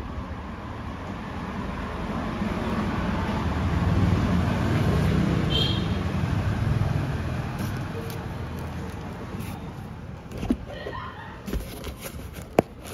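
A road vehicle passing by, its traffic rumble swelling to a peak a few seconds in and then fading away. A few sharp clicks follow near the end.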